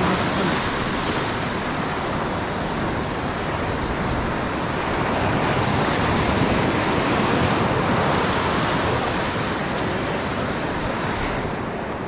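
Ocean surf breaking and washing across the sand at close range: a steady rush of water that swells a little midway and loses its hiss just before the end.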